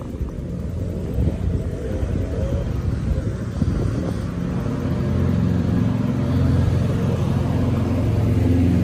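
Steady low rumble of riding a bicycle over a paved street, with wind on the phone microphone and the tyres rolling on the paving stones, growing louder over the second half.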